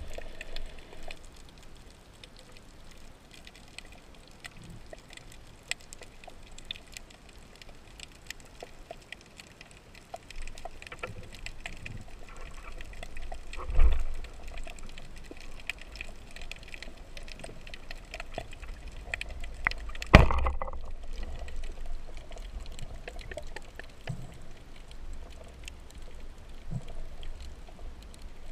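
Underwater sound picked up by a camera mounted on a speargun: a steady muffled water wash with faint crackling clicks throughout, a low thump about 14 seconds in, and a sharp crack about 20 seconds in, the loudest sound, which fits the speargun firing the shaft that spears a small fish.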